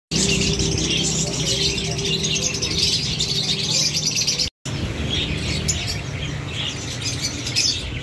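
A shop full of small caged birds chirping together in a dense, continuous chorus over a low steady hum. The sound cuts out for an instant about halfway.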